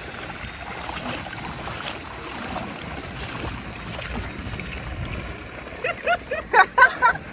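Steady outdoor wash of water and wind noise, with a few brief voices near the end.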